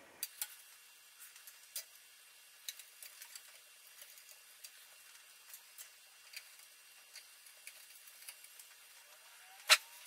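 Scattered light metallic clicks and taps of a screwdriver and small screws as motherboard screws are started into the case standoffs, with one sharper, louder click near the end.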